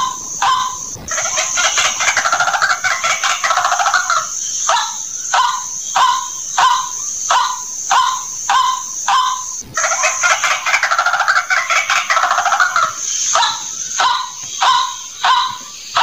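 White-breasted waterhen calling: short croaking notes repeated one or two a second, broken twice by a long, fast chattering bout. A steady high hiss runs behind it. The recording cuts out briefly about ten seconds in and the same sequence starts again, as a looped lure call.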